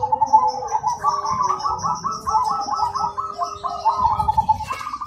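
Zebra dove (perkutut) cooing: a rhythmic run of short staccato coos, about five notes a second, with a fainter series of high chirps above it and a brief click near the end.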